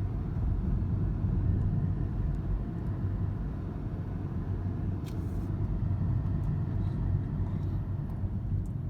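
Steady low rumble of a car heard from inside the cabin, with a faint hum under it and one faint click about halfway through.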